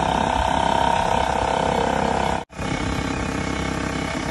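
Portable air compressor running steadily with a loud mechanical chatter while inflating a motorcycle tyre. The sound cuts out for an instant about halfway through, then carries on the same.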